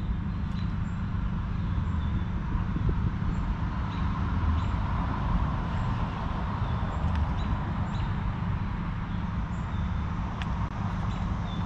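Steady low rumble of outdoor background noise, like distant road traffic, with a faint short high chirp repeating about once a second and a few light clicks.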